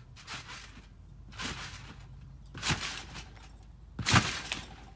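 A person bouncing on a trampoline, the body landing on the mat in four thuds with a rustling hiss, about a second or so apart, the last near the end the loudest.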